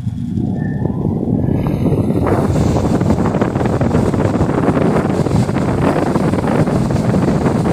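Everest 22-inch pedestal fan running loudly, its airflow buffeting the microphone as a rumbling rush that builds over the first two seconds and then holds steady. The fan is noisy.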